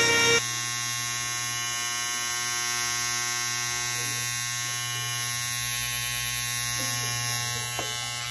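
Electric hair clippers running, a steady, unchanging buzz with a low hum.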